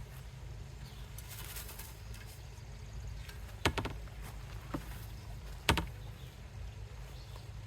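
A brief rustle, then two sharp knocks about two seconds apart with a fainter one between, over a steady low rumble.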